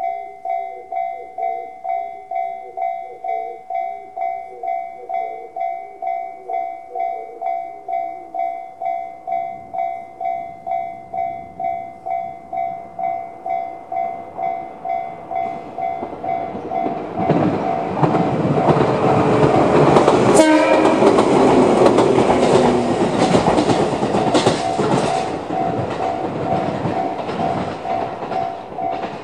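Japanese railway level-crossing alarm in the JR standard electronic bell tone, ringing steadily about twice a second. From about 17 s in, a Shinano Railway SR1-series electric train passes the crossing, its wheels rumbling and clacking over the rail joints, and the bell keeps ringing under it.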